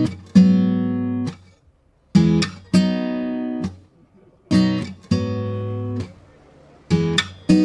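Acoustic guitar strumming chords: pairs of strums about every two seconds, each chord left to ring. This is the instrumental opening of a song.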